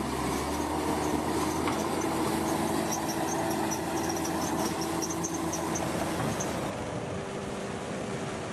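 Heavy earthmoving machinery working: a diesel engine runs steadily under a string of short, high squeaks. The sound changes abruptly near the end.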